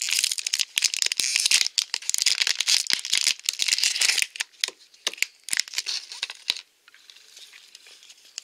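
Gold foil wrapper of a Grossery Gang blind pack crinkling as it is unwrapped by hand, dense and continuous at first, thinning to a few scattered crinkles about four seconds in.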